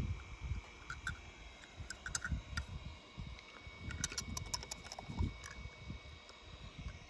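Faint scattered clicks and taps of a die-cast toy truck being handled and pressed into a plastic tub of paint, with a small cluster of clicks about four seconds in, over a low uneven rumble.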